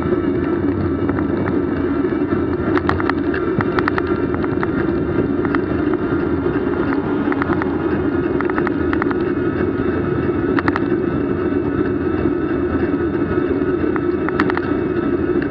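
Steady hum of a vehicle on the move, holding one pitch throughout, with scattered sharp clicks and rattles.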